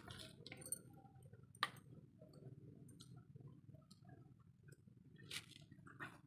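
Near silence with faint scattered ticks and clicks from a wood cooking fire burning under an iron kadai of heating oil. A sharper click comes about a second and a half in and another after about five seconds.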